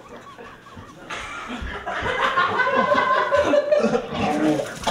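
Several people laughing and chattering together; the laughter builds from about a second in.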